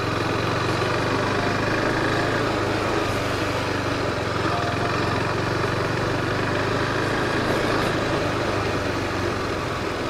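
KTM RC 390's single-cylinder engine running at low, steady revs, with an even pulsing thrum.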